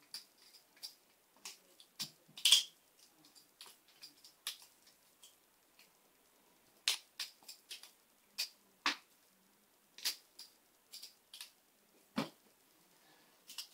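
Titanium-handled Benchmade 51-style balisong being flipped: irregular sharp metallic clicks and clacks as the handles swing around and knock shut, a few louder clacks among lighter taps.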